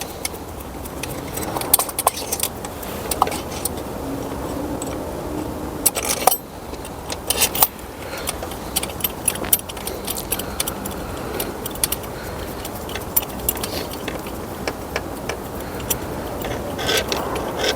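Small metal clinks and rattles, scattered and irregular, of bolts and hand tools being handled while a manifold bracket is unbolted and refitted.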